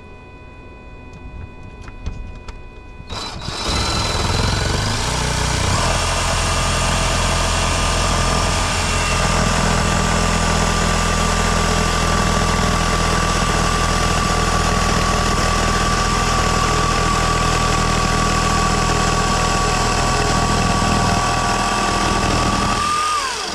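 Power drill boring through a house's exterior wall. It starts about three seconds in, runs steadily under load with a constant whine for about twenty seconds, then stops.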